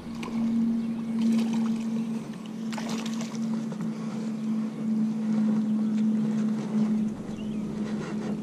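Wind noise on the microphone over a steady low hum, with a brief cluster of clicks and rustling about three seconds in.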